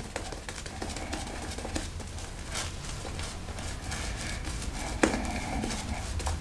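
A Zenith 502 silvertip badger shaving brush working shaving cream into a lather on the face. It makes a soft wet swishing with many small irregular clicks and pops, and a sharper click about five seconds in.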